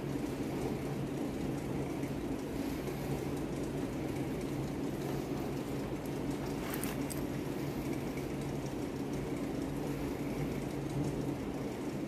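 Stationary exercise bike pedalled steadily under resistance, giving a continuous low whir with a constant hum, and a brief click about seven seconds in.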